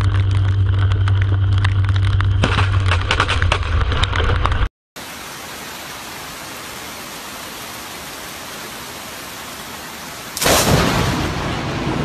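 Thunder rumbling low with crackling just after a lightning strike over a lake. After a break, steady rain falls, and about ten seconds in a sudden loud thunderclap from a close strike breaks out and fades over a second or two.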